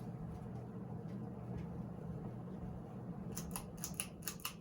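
1979 Hunter Original ceiling fan's shaded-pole motor running steadily on high speed with a low hum, smoothly and in balance. Near the end comes a quick run of sharp clicks.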